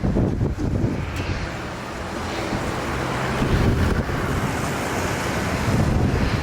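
Jet airliner passing overhead on landing approach, its engine noise swelling from about a second in and easing off near the end, over strong gusty wind buffeting the microphone.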